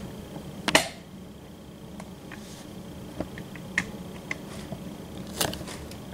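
Handling noise: scattered clicks and light knocks as a cardboard toy box is held and shifted in hand, over a faint steady hum. The loudest clicks come just under a second in and again near the end.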